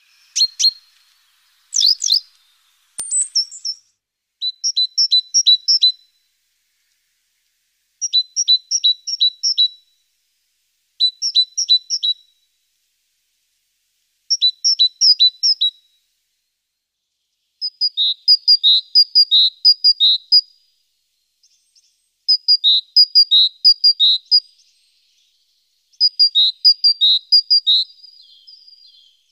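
A small songbird chirping in quick phrases of several high notes, a phrase every few seconds, with a few sharp clicks in the first three seconds.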